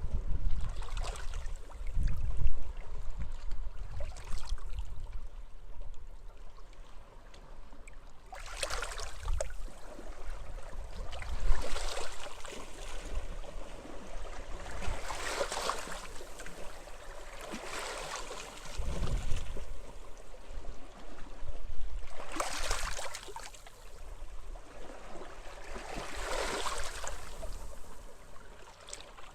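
Small waves washing onto the shore, each wash swelling and fading every three to four seconds, with wind rumbling on the microphone in gusts, strongest near the start.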